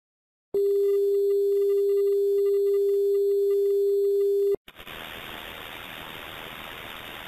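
A steady television test-pattern tone holds one pitch for about four seconds and cuts off suddenly. It is followed by the quieter hiss of analog TV static.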